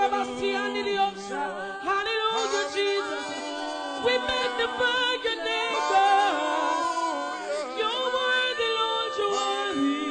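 Church praise team singing a gospel worship song, several voices holding long notes and sliding between them, with little or no instrumental backing.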